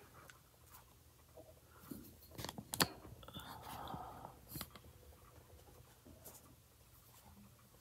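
Faint handling of paper on a desktop: soft paper rustling with a few light taps and clicks, the sharpest about three seconds in.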